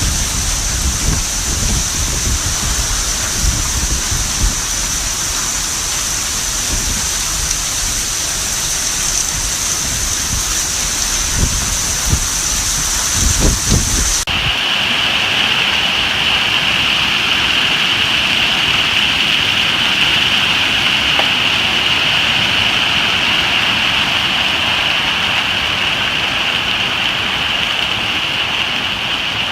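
Wind and hail storm. Through the first half, gusts buffet the microphone over a steady hiss of falling rain and hail. About halfway through the sound changes abruptly to a steady downpour of rain and hail without the wind gusts.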